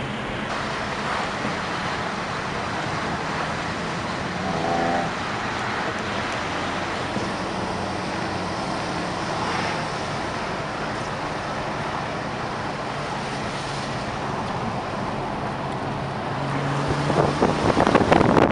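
Steady road and engine noise heard inside the cabin of a moving car. Near the end, wind noise rises sharply and buffets the microphone.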